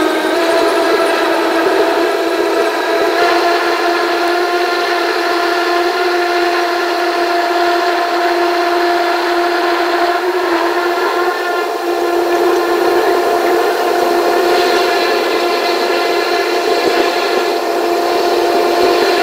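Dash 8 turboprop's engine and propeller running at steady taxi power: a loud, even drone holding one pitch, with a few steady tones over a rushing noise.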